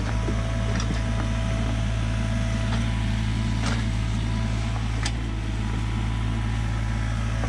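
Sany U35 mini excavator's diesel engine running steadily under digging load, with a thin steady whine above the drone. A few sharp knocks come as the bucket works the hard earth.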